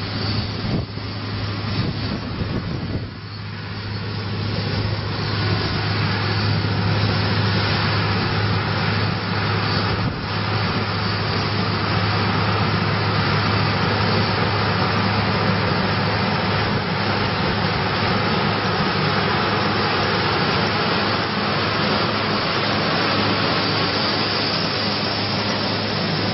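Corn harvesting machine running steadily: a constant low engine drone under a loud, even rushing noise. The sound dips briefly about three seconds in, then holds.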